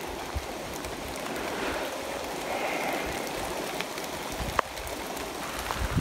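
Steady rushing wash of water, with a single sharp click about four and a half seconds in.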